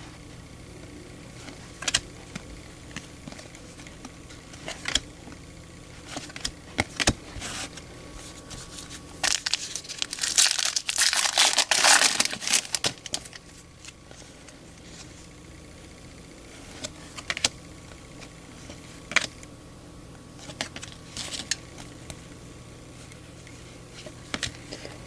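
Baseball cards being handled, with sharp card flicks and clicks scattered throughout, and from about nine to thirteen seconds in a card-pack wrapper crinkling and tearing as a pack is opened.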